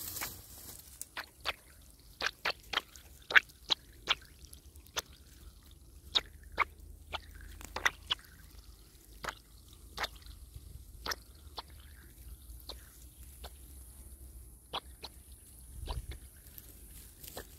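Water drops falling one by one into a small puddle at the base of a sapling: about two dozen separate sharp plinks, uneven in spacing, coming faster in the first few seconds and thinning out later.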